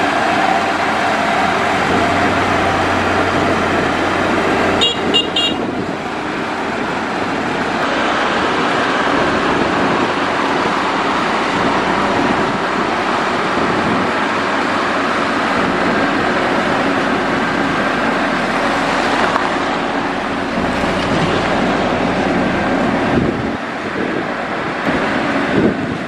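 Motor grader's diesel engine running steadily under load as the grader spreads gravel, with a few short high beeps about five seconds in.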